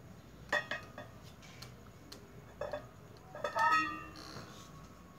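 Metal puja utensils clinking against the offering plate: a few light clinks, then a louder cluster about three and a half seconds in that rings on for about a second.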